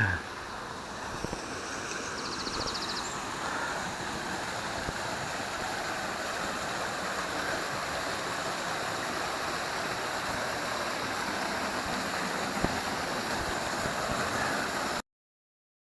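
Forest waterfall rushing steadily, with a brief knock at the very start. The water sound cuts off suddenly near the end.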